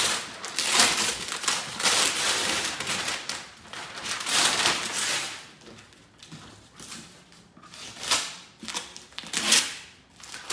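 Brown kraft wrapping paper being torn and crumpled off a cardboard box, in long rustling bursts. From about six seconds in it goes quieter, with a few short scraping strokes of a blade slitting the packing tape on the box.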